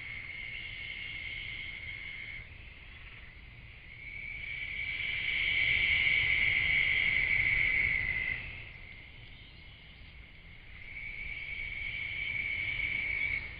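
Night insects trilling in a steady high chorus. It breaks off suddenly about two seconds in and again about eight seconds in, swelling back each time, and stops once more near the end, over a faint low rumble.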